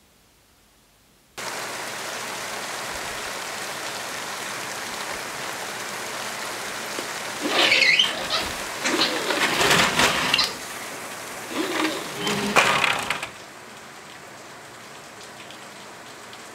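Steady rain hiss that cuts in suddenly about a second in, with two louder, rougher surges in the middle, then falls to a quieter hiss near the end.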